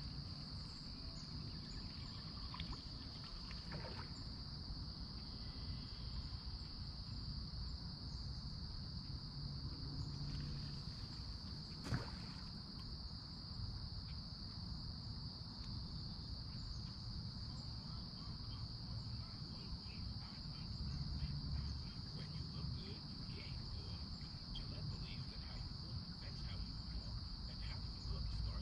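Steady, unbroken chorus of insects, with a low wind-like rumble on the microphone underneath and a single sharp click about twelve seconds in.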